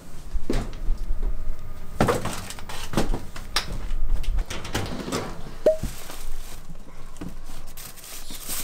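Scattered knocks and clatter of things being handled and set down, with a low rumble through the first half.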